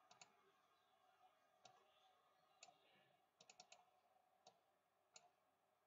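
Faint computer mouse clicks, about ten sharp clicks, with a quick run of four about halfway through.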